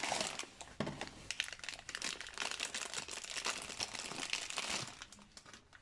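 Packaging crinkling and crackling as it is handled, with many small crackles, for about five seconds before it dies away.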